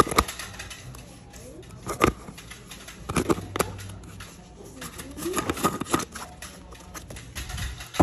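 Sharp plastic clicks and knocks from handling a seasoning container and its red plastic lid, a few separate strikes, with a faint wavering voice about five seconds in.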